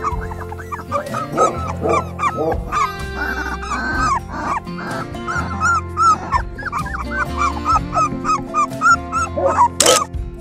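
Young puppies whimpering and yipping, a quick run of short cries that rise and fall, over background music. Near the end comes one brief, louder, sharper cry.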